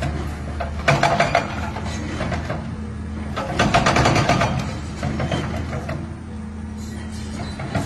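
Volvo excavator's engine running steadily, with bursts of rapid crunching and clattering about a second in and again around four seconds in as its hydraulic demolition crusher bites into the water tower's concrete legs.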